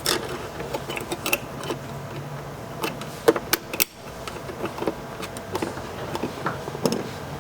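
Scattered light clicks and taps of plastic laptop parts being handled as a hinge cover is fitted onto a Panasonic Toughbook CF-30, over a steady low hum.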